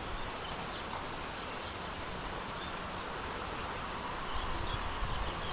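Outdoor ambience: a steady hiss with a few faint, short high chirps, and a low rumble that rises in the last second or so.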